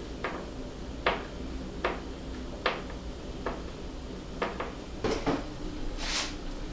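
Screwdriver working screws through a steel bracket into the back of a flat-screen TV: sharp metallic clicks at a fairly even pace, a little under a second apart. Near the end, a short scraping rustle.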